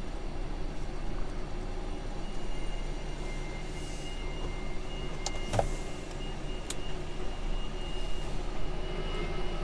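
2022 DAF XF 480 lorry's PACCAR MX-13 diesel engine running steadily. A faint steady high tone comes in a couple of seconds in, and a few sharp clicks and a knock sound around the middle.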